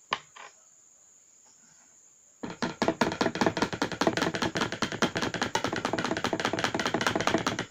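Rapid knocking on a hard surface, many quick strikes a second, starting about two and a half seconds in and going on for about five seconds before stopping abruptly. It is a deliberate noise made just before brown dye is added to the slime.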